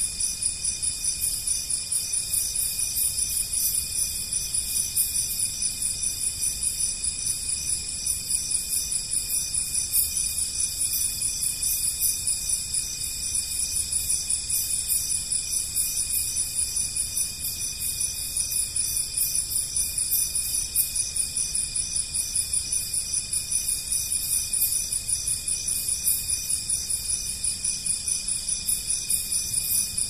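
Forest insect chorus: several high, steady trills layered at different pitches, with a fast, even pulsing throughout.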